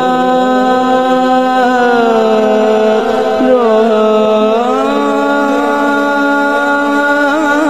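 A male naat reciter singing unaccompanied into a microphone, drawing out long held notes on a vowel without words. The pitch slides down about two seconds in and climbs back up a little before the halfway point.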